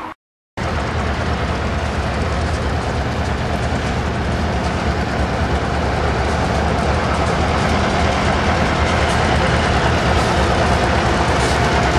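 EJ&E diesel-electric freight locomotives running as they approach, the deep engine rumble and rail noise growing gradually louder. The sound drops out completely for a moment right at the start.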